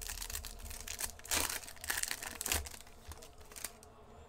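Wrapper of a trading-card pack being torn open and crinkled by hand: a quick run of crackling, rustling tears that dies away near the end.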